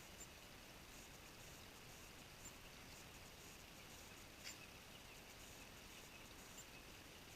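Near silence: faint outdoor ambience with a few soft high ticks and one small click about four and a half seconds in.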